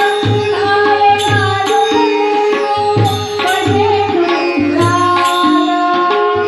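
A woman singing a Marathi bhajan into a microphone, accompanied by tabla, keyboard, tanpura and small hand cymbals keeping an eight-beat bhajan rhythm. Deep drum strokes and bright, ringing cymbal strikes come at a steady pulse under the held melody.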